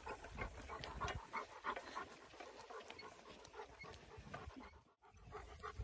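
A Newfoundland dog panting steadily, about three breaths a second, while pulling a hay cart.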